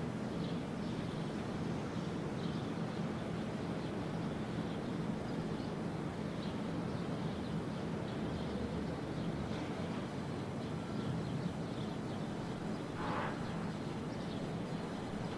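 Steady low rumble of outdoor city ambience, with faint high bird chirps now and then.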